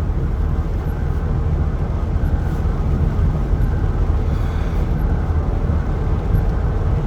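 Steady low rumble of a vehicle's engine and road noise, heard from inside the cabin.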